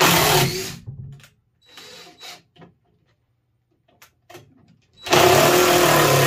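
Power drill running in bursts: a loud burst at the start that winds down within a second, a brief quieter run about two seconds in, and a longer loud run of a little over a second near the end.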